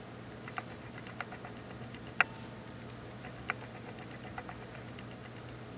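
A few faint, light ticks and clicks at uneven intervals, the loudest a little over two seconds in, over a steady low hum.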